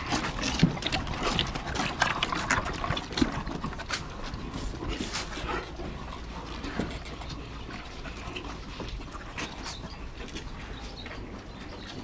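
Holstein dairy cows eating feed from a trough: a dense, irregular run of short crunching and clicking sounds from several animals, busier in the first few seconds.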